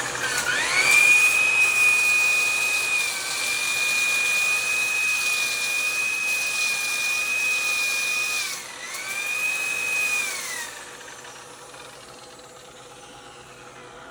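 Electric buffing polisher spinning up to a steady high-pitched whine, dipping briefly in speed near nine seconds in, then winding down and stopping about eleven seconds in.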